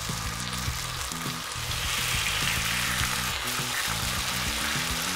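Fish fillets frying in hot oil in a pan: a steady sizzle that gets louder about two seconds in, over background music.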